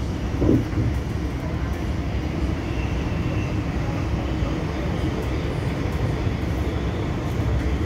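Light-rail tram running at speed, heard from inside the passenger cabin: a steady low rumble of wheels on rails. A short, louder sound breaks in about half a second in.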